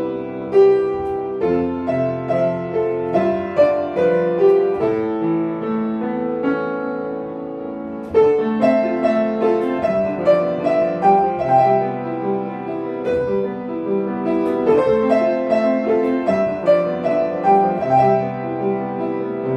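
A piano piece played with struck melody notes over chords. About eight seconds in, a held chord fades away and the next phrase comes in louder.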